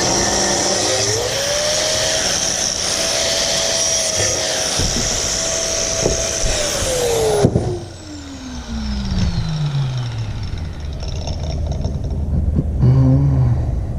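Electric power tool motor running at speed, its pitch rising about a second in, then switched off about halfway through and spinning down in a long falling whine. Quieter handling noises follow.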